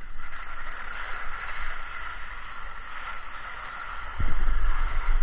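Skis sliding over packed snow, a steady scraping hiss. From about four seconds in, wind buffeting the camera's microphone adds a loud low rumble.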